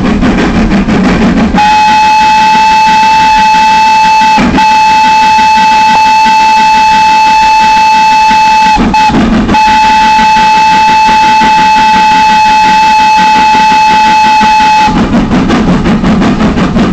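Train whistle blowing long on one steady high pitch for about thirteen seconds, broken by two brief gaps. A low rumble of the train running fills the seconds before and after it.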